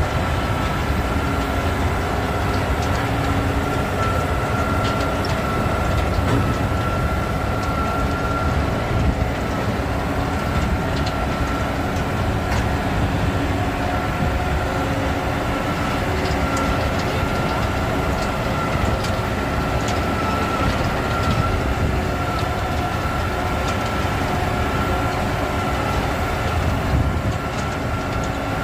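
Highline AMX850T TMR feed mixer running: a steady mechanical rumble with a constant high whine over it.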